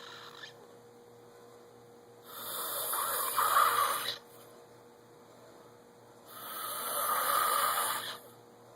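A person snoring in deep sleep: two long, rasping snores about four seconds apart, each lasting about two seconds.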